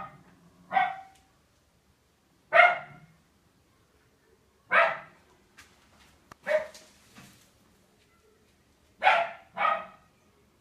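A dog barking in single short barks at irregular intervals, about seven of them, two in quick succession near the end.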